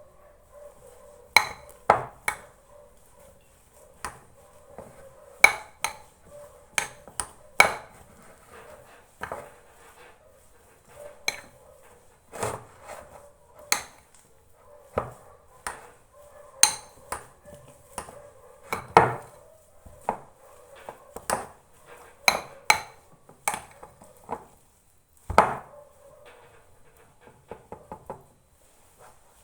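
Irregular knocks of a utensil against a pot or bowl, roughly one a second, as boiled potatoes and grated boiled eggs are mashed together.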